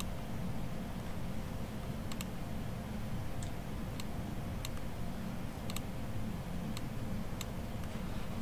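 Scattered, irregular clicks of a computer mouse, about ten over several seconds, as a chart is resized on screen, over a steady low room hum.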